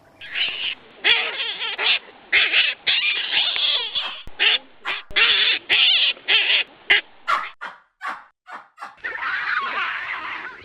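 A rapid string of short animal calls with brief gaps between them, then a few sharp clicks and a longer, noisier call near the end.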